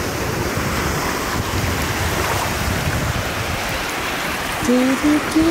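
Steady wash of small sea waves breaking and swirling around wading legs in shallow water, with some wind on the microphone. A voice comes in near the end.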